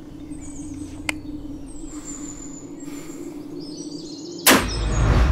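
Stoeger RX20TAC air rifle fired once near the end: a sharp crack followed by a deep rumble. A soft click comes about a second in, over a steady low drone and faint bird chirps.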